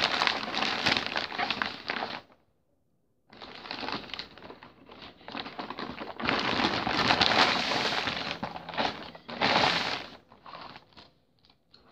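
Shiny gift wrapping being torn open and crumpled by hand, in uneven bursts of crinkling with a break of about a second early on, loudest a little past the middle, then thinning to a few small crackles.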